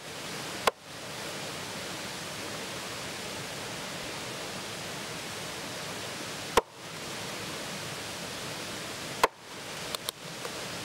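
Cleaver chopping salmon into pieces on a wooden cutting board: three sharp chops a few seconds apart, then a couple of lighter knocks near the end, over a steady hiss.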